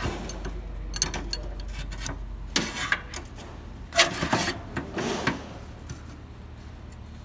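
Steel open-end wrenches clinking and scraping on a hydraulic hose fitting against a steel workbench: a string of separate metallic clicks and knocks as the fitting is worked loose.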